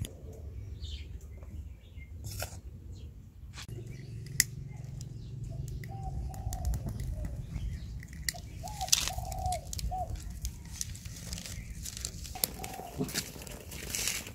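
Dry palm-leaf kindling rustling and crackling as it is pushed into a small wood fire and catches alight. A few short chirps come in the background.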